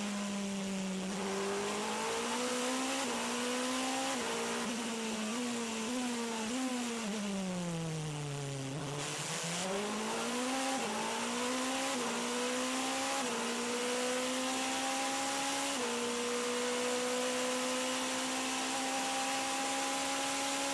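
Toyota TS 040 Hybrid LMP1 race car's V8 engine heard onboard. Its pitch falls in a long slide to a low point about eight or nine seconds in as the car slows for a corner, then climbs again through about five quick upshifts and holds a steady high pitch at speed for the last few seconds.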